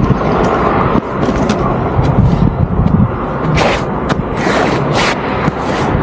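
Loaded touring bicycle being pushed across rough scrubland, its tyres rolling and crunching over gravel and dry brush under a heavy low rumble, with a run of sharp crackles between about three and a half and five seconds in.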